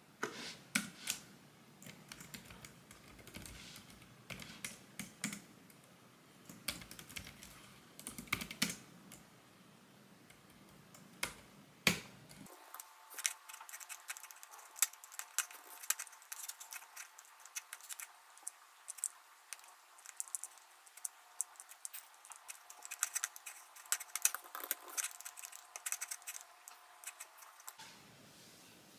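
Typing on a compact white computer keyboard: a fast, irregular run of key clicks, sounding thinner after about twelve seconds.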